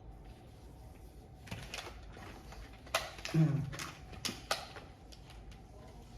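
Sharp plastic clicks and taps from handling the opened Akko LW325 mouse, about five of them at irregular intervals, two close pairs in the middle.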